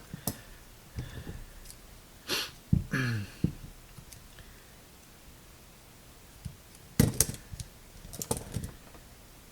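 Black electrical tape pulled off its roll in two short tearing pulls, about two and three seconds in, while it is wrapped around a cable joint. Scattered clicks and taps from handling the cable and roll follow, the sharpest about seven seconds in.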